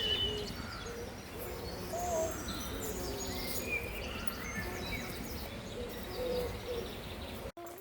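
Several birds singing and chirping over a steady background hiss, with a few lower calls mixed in; the sound cuts off abruptly near the end.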